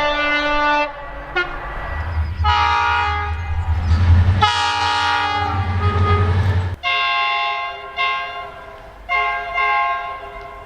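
Train horns sounding a series of blasts: a two-tone horn dropping to its lower note and stopping about a second in, then two long, loud chord-like blasts over a deep rumble, then two shorter, quieter blasts near the end.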